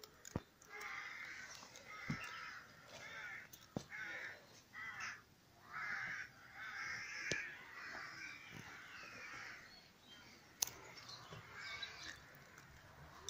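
Crows cawing over and over, call after call throughout, with a few sharp clicks in between; the loudest click comes about ten and a half seconds in.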